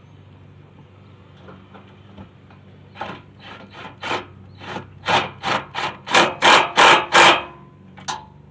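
A hand tool scraping back and forth in quick strokes, about a dozen of them, roughly two to three a second. They start about three seconds in and grow louder, with one last stroke near the end.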